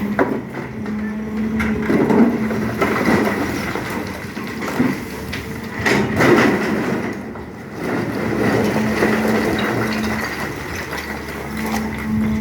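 SANY hydraulic excavator working: a steady engine and hydraulic drone under irregular crunches and knocks as the bucket digs into soil and rock.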